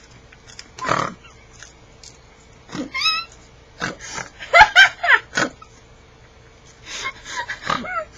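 Hysterical laughing in a series of bursts, with snorts and high squeals; the loudest burst comes a little past halfway.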